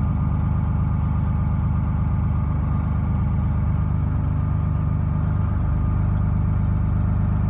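2004 Dodge Ram's 5.9 Cummins inline-six turbodiesel idling just after a cold start at about 5 degrees, with the block heater unplugged, heard from inside the cab. A steady, even diesel clatter; the low hum grows slightly stronger about five and a half seconds in.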